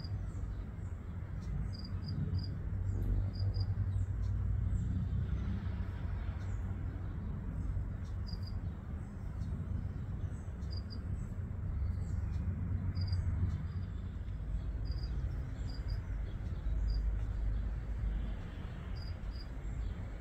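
A cricket chirping in short groups of two or three high notes, repeated every second or two, over a steady low rumble.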